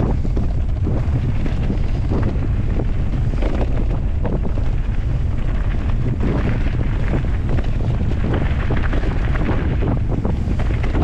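Heavy wind buffeting the microphone of a camera moving fast down a trail: a steady loud low rumble with rough, crackly noise over it.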